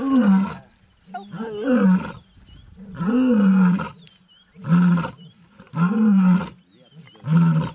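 Lioness giving a series of six short, loud calls, about one every second and a half, each rising and then falling in pitch. Faint high chirps sound between the calls.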